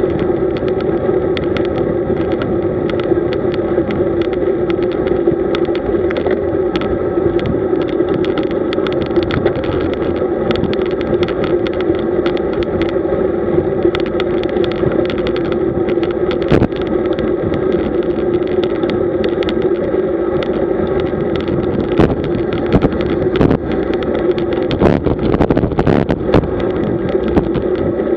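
Steady wind and road noise on a camera riding along on a road bicycle, with fixed droning bands and many small clicks and rattles from road-surface vibration.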